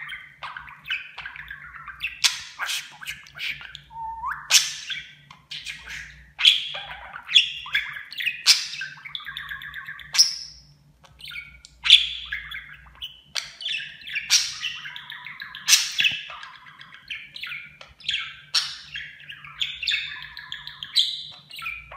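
Pet budgerigar warbling close by: an unbroken stream of quick chirps, squeaks and sharp clicks with no real pauses.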